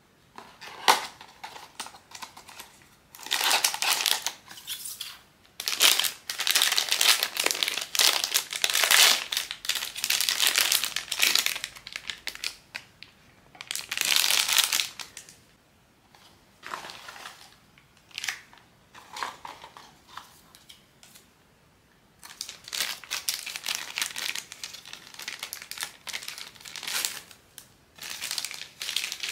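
Plastic blind-box packaging crinkling and crackling as it is handled and unwrapped by hand. It comes in stop-start bursts with short pauses and a few sharp clicks.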